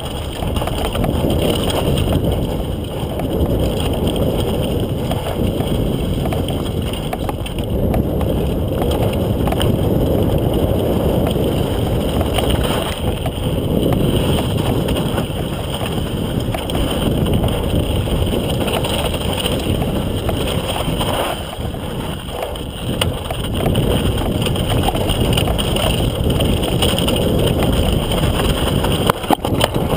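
Mountain bike descending a rough dirt downhill trail, heard on a rider-mounted GoPro: continuous wind noise on the microphone over the rattle and rumble of the bike on the ground. Near the end, a few sharp knocks as the rider crashes.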